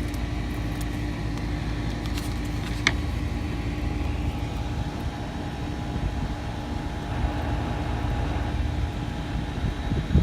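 Steady low mechanical hum with a brief high chirp about three seconds in.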